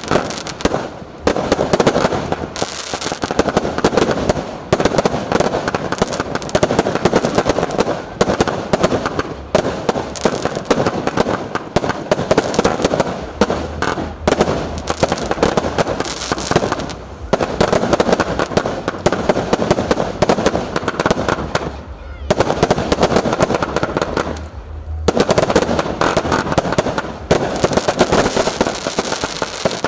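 Fireworks going off in a dense, rapid barrage of bangs and crackles, with a few short pauses and a longer lull of about three seconds near the last third.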